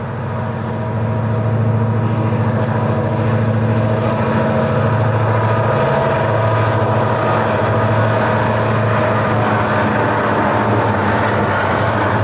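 A lashup of diesel-electric freight locomotives running under power as they pass close by. Their engines make a steady deep drone with a dense hum of overtones, which grows louder over the first second or two and then holds.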